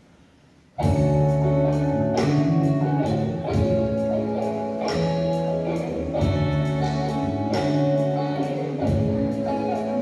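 Near silence, then instrumental music starts suddenly about a second in and plays on with sustained chords and a regular beat: the introduction to a song.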